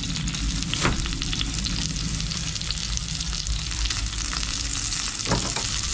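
Pork slices frying in hot oil in a square pan on a portable gas stove: a steady sizzle full of fine crackles over a low steady rumble. Two brief sharp clicks sound, about a second in and again near the end.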